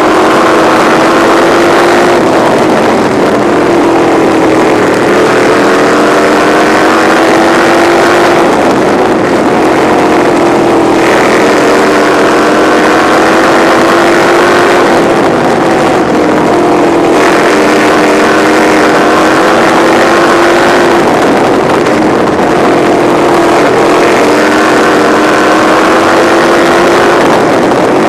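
Midwest Lights sprint car engine at racing speed, heard from the cockpit. Its pitch dips and climbs again every few seconds as the car lifts for each turn and powers down the straights, over a steady rush of noise.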